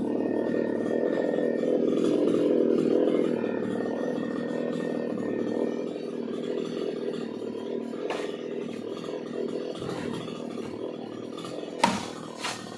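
Chainsaw engine running steadily, louder for the first few seconds and then easing off. A single sharp crack comes near the end.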